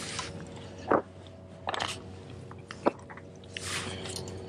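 Handling noises as a freshly landed largemouth bass is held and unhooked: a few short scuffs and rustles, with two sharp clicks about a second in and just before three seconds.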